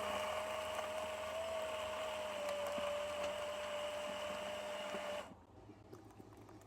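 Ninja To Go personal blender running with a steady motor whine, mixing a piña colada with ice. It stops suddenly about five seconds in.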